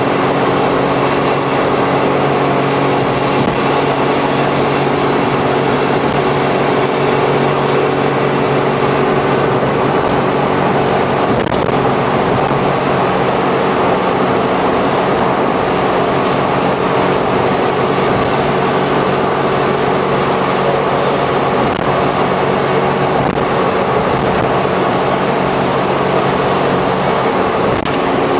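Interior running noise of a Suzuki Every kei van with Auto Gear Shift, cruising at steady highway speed. The 660 cc three-cylinder engine drones at a steady pitch under road noise from tyres on a wet surface.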